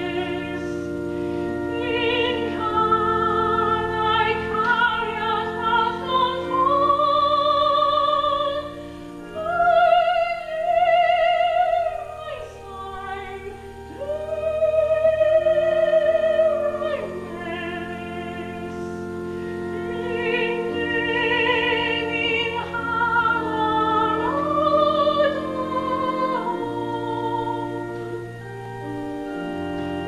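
Female soloist singing a slow classical song with vibrato, accompanied by sustained keyboard chords.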